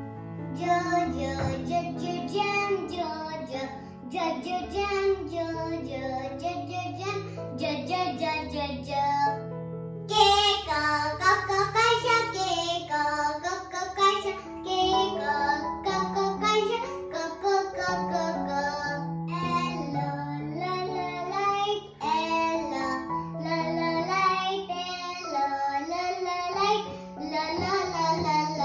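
Children's phonics song: a child's voice singing a melody over a light instrumental backing with a bass line, in short phrases with brief breaks.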